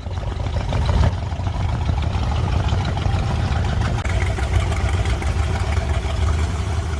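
A loud engine running steadily with a deep rumble. It cuts in abruptly at the start.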